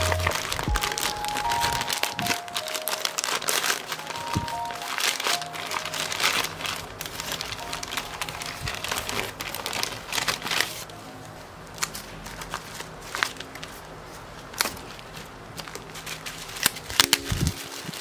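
Plastic courier mailer and bubble wrap crinkling and crackling as a parcel is torn open and unwrapped by hand. The handling is busiest in the first half and quieter after about eleven seconds.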